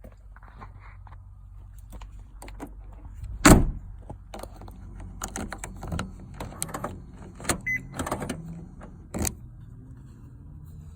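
A small electric motor in a 2004 BMW X5 hums steadily, with scattered clicks and a sharp knock about three and a half seconds in.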